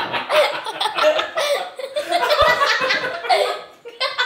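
A woman and a girl laughing hard, in fits and bursts.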